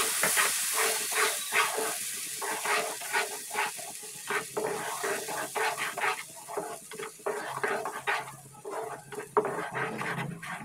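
Ground onion paste sizzling in hot oil in a nonstick pan while a wooden spatula stirs and scrapes it. The sizzle is strong at first and dies down after a couple of seconds, leaving a run of quick, irregular spatula strokes.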